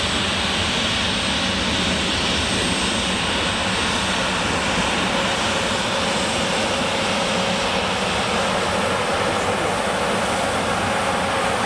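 Airliner's engines running loud and steady: a broad rush of engine noise with a thin whining tone over it.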